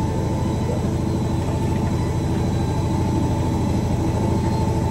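An electric motor in a kitchen appliance running steadily, with a constant hum and a fast, even flutter underneath.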